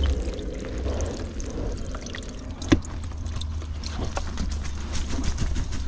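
River water draining and trickling through the mesh of a freshly lifted whitebait net. There are small clicks of handling, and one sharp click comes about two and a half seconds in.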